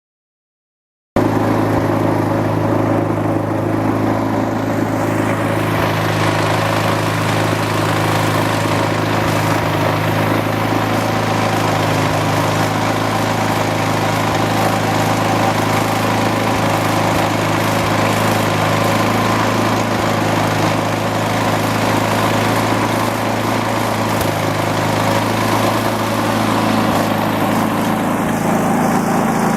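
An engine running steadily at a constant speed, cutting in abruptly about a second in.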